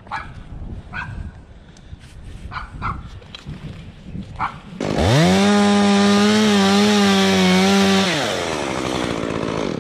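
Gas chainsaw revved up sharply to full throttle about five seconds in, held steady for about three seconds, then eased back to a lower level. Before it, a dog barks a few times.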